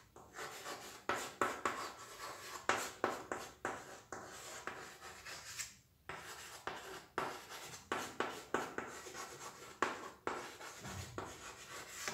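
Chalk writing on a chalkboard: a quick run of short scratching strokes and taps, with a brief pause about halfway through.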